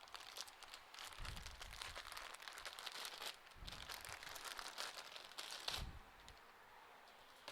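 Modular power-supply cables and their plastic packaging being handled and sorted through: rustling and small clicks with a few soft bumps, dying down about six seconds in.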